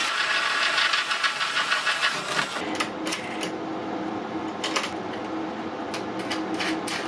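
Cordless drill boring through a steel frame upright, running with a fast, even rhythm for about two and a half seconds. After that, a series of short metallic clicks and clinks as a steel butt hinge is handled and pressed onto bolts.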